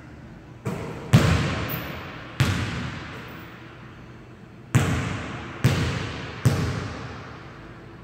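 Basketball bouncing on a hardwood gym floor: six sharp bounces, a cluster in the first two and a half seconds after a shot, the loudest about a second in, then three evenly spaced bounces near the end, each ringing out in the hall's echo.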